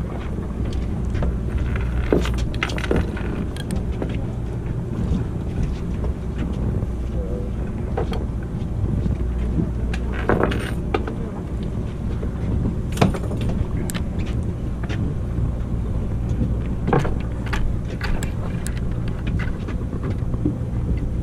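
Boat engine running steadily, a constant low rumble, with scattered short clicks and knocks of fishing tackle on deck.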